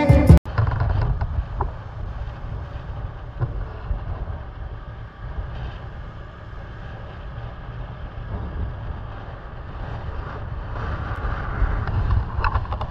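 Wind rumbling on the microphone with the road noise of a moving motorcycle: a steady low rumble. A guitar music track cuts off about half a second in.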